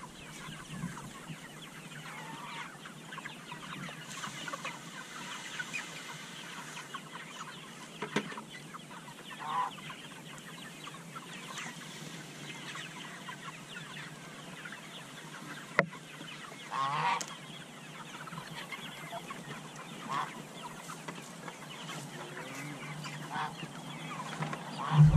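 A large flock of seven-week-old Cornish Cross broiler chickens clucking and peeping without a break, with a few louder calls now and then and a single sharp click about two-thirds of the way through.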